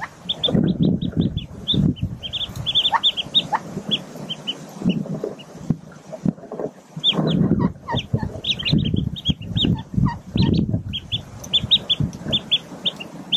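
Newly hatched mallard ducklings peeping in quick runs of short high notes, easing off briefly in the middle. Underneath are low, soft clucking calls, likely from the mallard hen brooding them.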